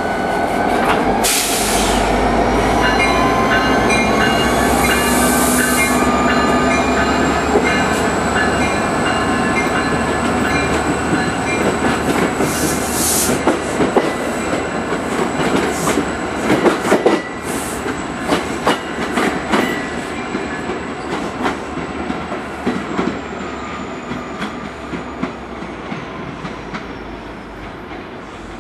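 EMD GP40-2 diesel locomotive, a 16-cylinder turbocharged engine, working as it pulls two passenger cab cars away, with two bursts of hiss in the first few seconds and a thin high whine that rises and then holds. As the cars roll past, their wheels click over the rail joints, and the whole train fades away.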